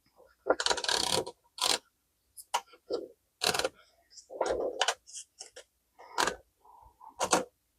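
Klein Continental portable typewriter being handled and readied for a test: a string of separate mechanical clicks and clunks at irregular spacing, with a few short rattling, scraping stretches.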